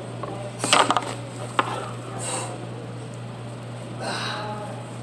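A lifter's heavy breathing during barbell rows: short forceful exhales about every two seconds, a grunt with a clatter of the bar about a second in, and a sharp metallic click of the plates. A steady low hum runs underneath.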